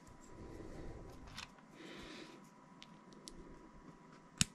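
Small 3D-printed PLA plastic parts handled and fitted together by hand: light rustling and soft taps, with one sharp plastic click near the end.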